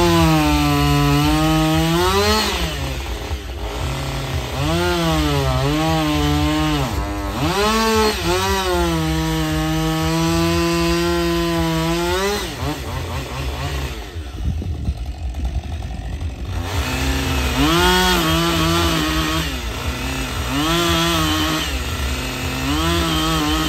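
Two-stroke chainsaw cutting into wood, the throttle opened in long runs with the engine pitch sagging under load, easing off for a couple of seconds midway, then cutting again in shorter bursts.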